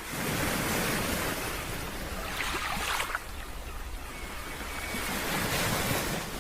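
Steady rushing roar of a large waterfall, Willamette Falls, with a few faint short sounds near the middle.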